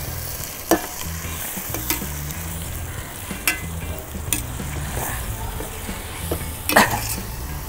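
Crumbled boiled sheep's blood with onions sizzling in hot oil in a kadai as it is stirred, with several sharp clicks of the spatula against the pan.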